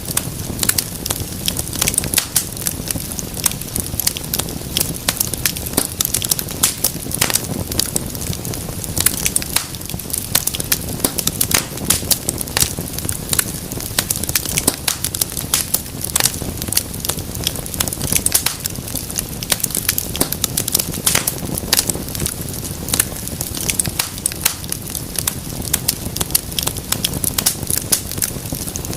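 Wood fire burning in a fireplace, with a constant stream of irregular sharp crackles and pops over a low, steady rumble of flames.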